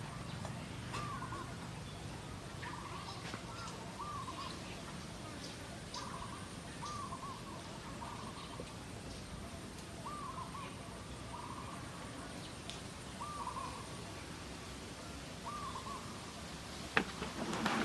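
A bird calling over and over in short arched notes, about one every one to two seconds. Near the end comes a single sharp knock.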